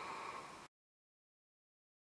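The soft tail of a sleeping person's breath just after a snore, then the sound cuts to dead silence less than a second in.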